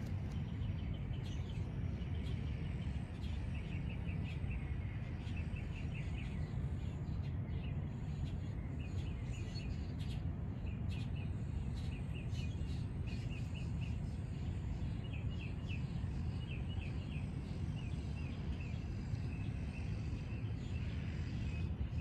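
Outdoor ambience: a steady low rumble with small birds chirping in short, quickly repeated trills through most of the stretch, and a few faint clicks.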